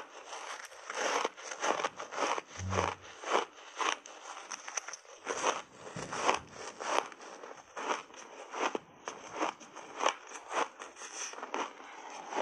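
Close-miked crunching of a frozen buckwheat ice bar coated in matcha powder as it is bitten and chewed, with sharp crunches about twice a second.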